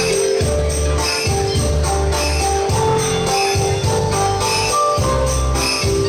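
Dance music playing: a melody over sustained bass notes in a steady pulse, with a regular high percussion pattern.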